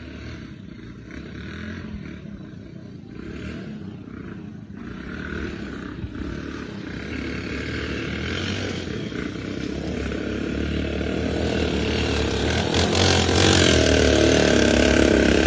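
Motorcycle engine running under load on an uphill climb, growing steadily louder.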